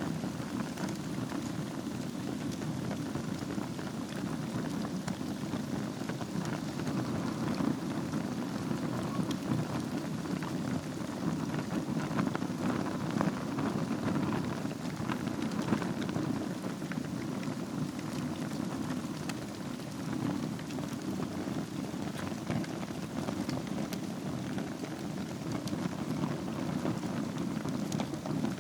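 Wood fire burning in a fireplace over embers: a steady low rush of flame with many small scattered crackles and pops.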